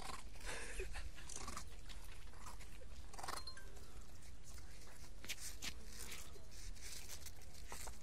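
Siberian husky puppy eating ice, licking and crunching at the frozen surface: irregular short crunches and clicks about once a second, over a steady low rumble.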